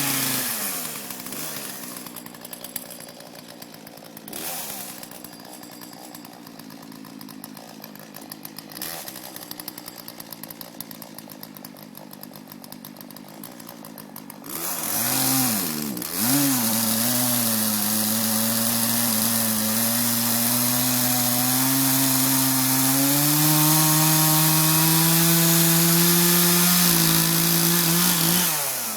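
Chainsaw engine idling with an even rhythm for about fourteen seconds, then revved up and held at high speed while cutting into wood, its pitch slowly climbing, before dropping back off near the end.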